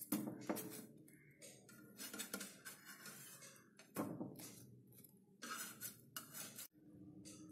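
Slotted spatula scraping and knocking against a nonstick pan as slices of bread are slid up and flipped over while toasting, a handful of separate clicks and scrapes, the loudest near the start and about four seconds in.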